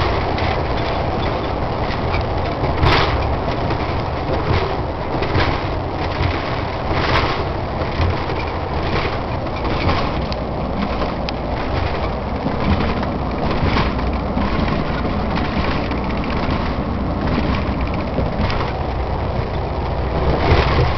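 Lorry driving at speed, heard from inside the cab: steady engine and road noise, with a sharp knock about every second.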